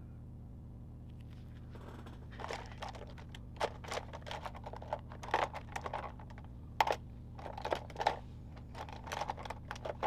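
Plastic pens clicking and clattering as they are picked through and handled, in irregular small clicks, over a steady low hum.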